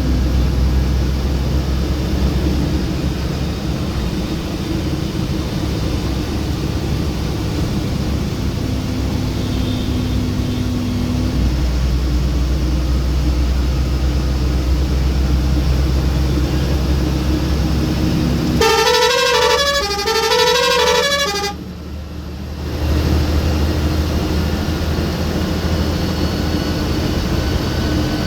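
Ashok Leyland BSVI bus diesel engine running steadily under way, heard from inside the driver's cabin. About nineteen seconds in, a multi-tone horn plays a short stepping tune for about three seconds, and the engine sound drops away briefly just after before returning.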